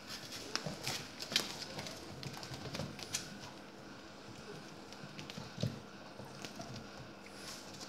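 Young puppies moving about: irregular light clicks and scuffs, with a few soft whimpers.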